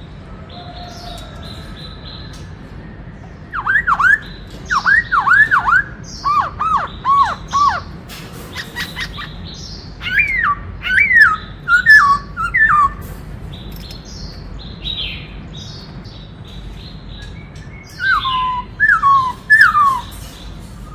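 Black-throated laughingthrush singing: three bursts of loud, clear whistled notes that each drop in pitch, with softer, higher chirps in between.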